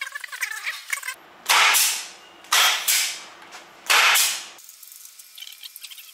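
Air ratchet on a long extension running in gearbox housing bolts: three short, loud hissing runs of about half a second each, after about a second of light ratchet clicking.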